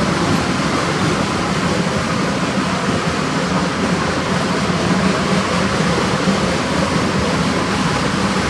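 Shay geared steam locomotive No. 15 working hard under throttle up a steep 9% grade, its exhaust a loud, steady, dense chuffing.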